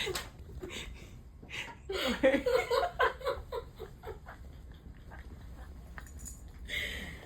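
A person laughing in a quick run of short repeated bursts for about two seconds, then a quieter stretch.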